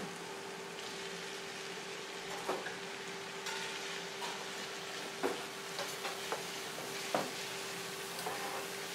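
Beef strips, onion and sliced red bell pepper frying in olive oil in a nonstick pan, with a steady sizzle. A wooden spatula stirs the mix and knocks against the pan about five times.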